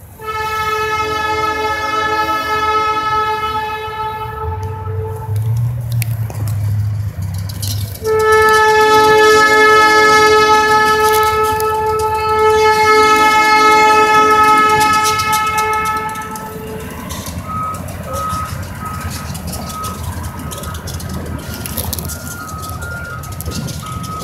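Diesel locomotive's chime air horn sounding a chord in two long blasts for a grade crossing, the first about five seconds and the second about eight. After the horn stops, a grade-crossing warning bell rings with a repeating tone over the rumble of the passing train and road traffic.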